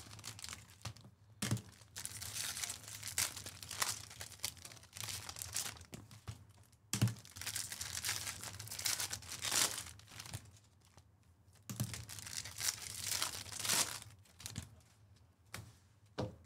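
Foil trading-card pack wrappers being torn open and crinkled, in repeated rustling bursts as cards are handled, with a couple of soft thumps.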